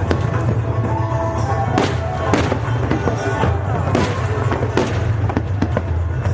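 Aerial fireworks going off one after another: many sharp bangs and cracks over a continuous low rumble.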